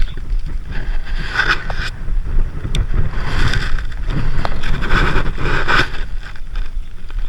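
Wind buffeting the microphone with a steady low rumble, mixed with bursts of rustling and a sharp click about three seconds in.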